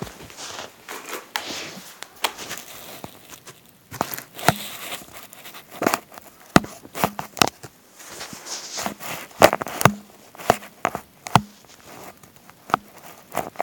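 Handling noise: irregular sharp clicks and knocks with rustling as a plastic Lego truck is moved about by hand.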